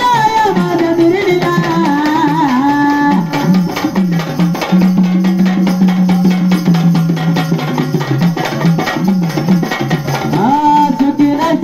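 Marathi gondhal folk music: hand drums play a fast, dense rhythm under a low melody line. A voice sings at the start, drops out after about three seconds, and comes back near the end.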